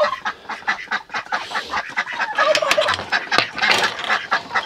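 A flock of penned ducks and other poultry calling together: a busy chorus of many short, overlapping calls.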